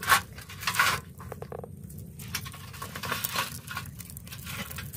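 Scattered rustles and light taps as lemongrass stalks are wrapped and tied around skewered armored catfish on a stainless-steel tray, over a steady low rumble.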